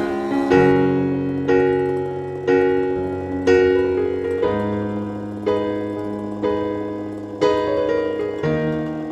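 Background music: piano or electric-piano chords struck about once a second, each fading away before the next.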